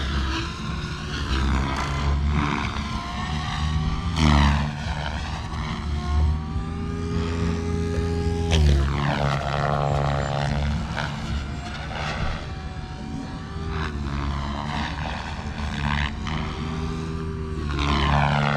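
SAB Kraken 580 electric RC helicopter flying overhead: the whine of its motor and rotor blades sweeps up and down in pitch again and again as it manoeuvres and passes, swelling louder several times.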